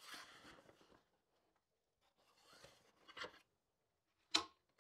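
Faint rustling and scraping of an avalanche shovel blade being slid into a nylon backpack compartment, with a few light clicks, then one sharp knock about four seconds in.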